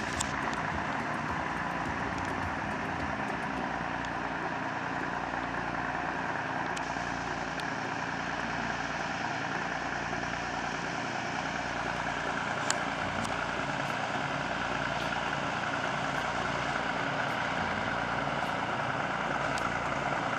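River pushboat's diesel engine running under way as it pushes a string of barges: a loud, steady drone with a slow low throb.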